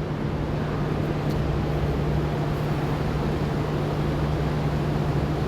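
Steady low mechanical hum over an even background noise, with no distinct events.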